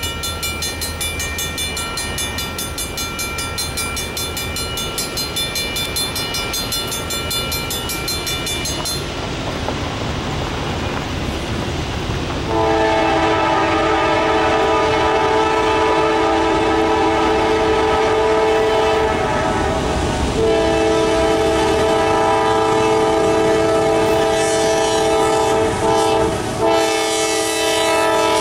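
Norfolk Southern freight train led by GE Dash 9-40CW diesel locomotives drawing near, first a steady rumble, then the lead locomotive's air horn sounding a chord of several tones at once. The horn blows in long blasts from about halfway through, with a brief break about 20 seconds in and another near the end.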